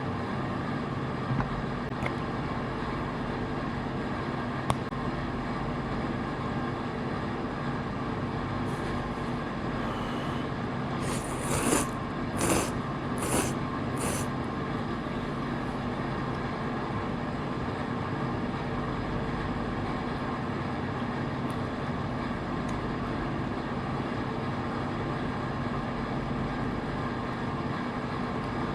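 Steady road and engine noise of a moving car heard from inside, with four short, bright noisy bursts around the middle.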